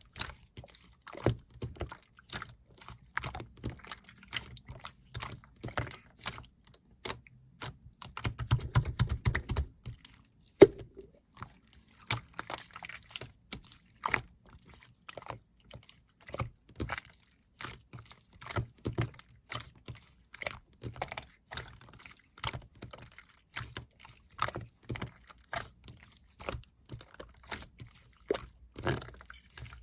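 Irregular clicks and taps, several a second, with a denser rattling run about eight to ten seconds in.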